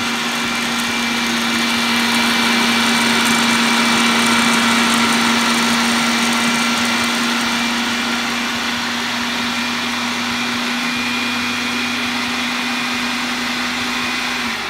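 Food processor running steadily, mixing oat-flour pancake batter. A steady motor hum with a thinner whine above it.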